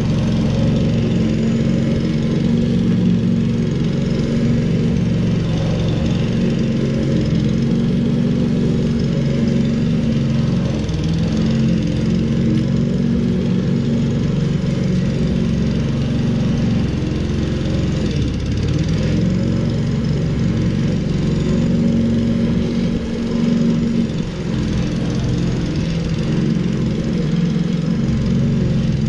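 Petrol engine of a walk-behind rotary lawn mower running steadily as it cuts slightly overgrown grass, with a brief dip in level a little over three-quarters of the way through.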